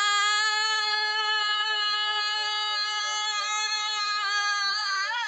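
A person's voice holding one long sung note at a steady pitch, which starts to waver near the end as the singer begins to break into laughter.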